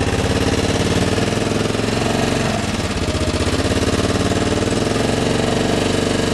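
Small engine of an open golf-cart-type vehicle running steadily with a rapid, even beat.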